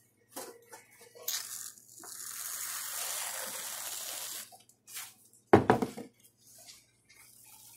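Aerosol whipped-cream can hissing as it sprays cream onto a mug: a short spurt, then a steady hiss for about two and a half seconds. A few clicks follow, then a sharp knock, the loudest sound.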